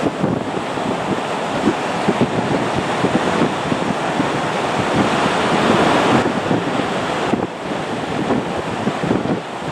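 Distant roar of a Boeing 737-200's Pratt & Whitney JT8D low-bypass turbofans at takeoff power, mixed with wind buffeting the microphone. It swells to its loudest about five to six seconds in.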